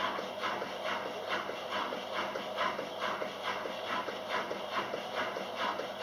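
Kelvinator K605 washing machine running mid-cycle: a rhythmic swishing about three times a second over a steady motor hum.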